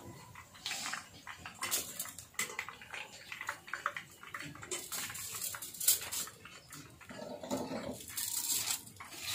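Irregular crackling, rustling and clattering as deep-fried chicken strips are lifted out of hot oil with a wire skimmer and handled on a foil-lined plate, with one sharp knock about six seconds in.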